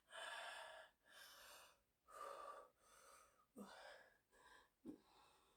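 Faint open-mouth breathing of a sleeping woman: a quick run of airy breaths, about one a second, with two short clicking snorts in the second half.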